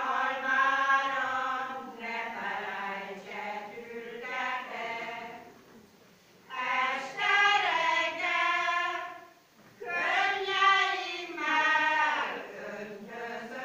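Women's folk choir singing in long phrases, with a brief break for breath about six seconds in and another near ten seconds.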